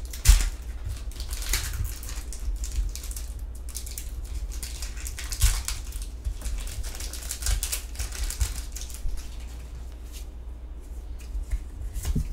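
A foil Pokémon booster pack being torn open and crinkled in the hands, with a run of irregular crackling rustles and small clicks, and a few sharper clicks among them.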